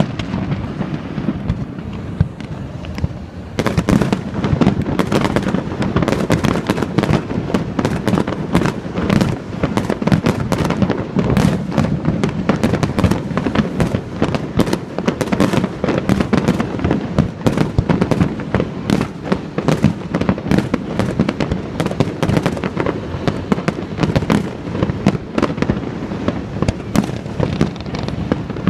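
Fireworks display: a dense, rapid barrage of bangs and crackles that thins briefly near the start, then picks up again about three and a half seconds in and carries on without a break.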